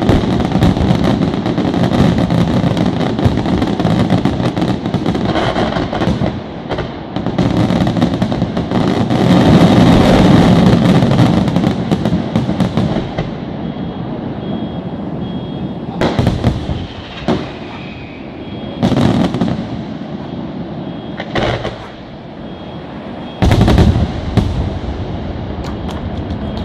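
Aerial firework shells bursting in a dense, continuous barrage for about the first dozen seconds, then thinning to a handful of single loud bangs spaced a couple of seconds apart.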